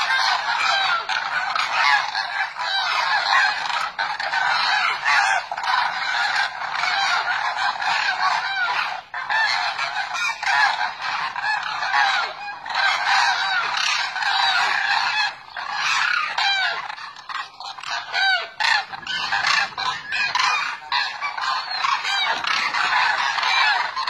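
A large flock of demoiselle cranes calling all at once: a dense, unbroken chorus of many overlapping calls, which thins out for a few seconds about two-thirds of the way through.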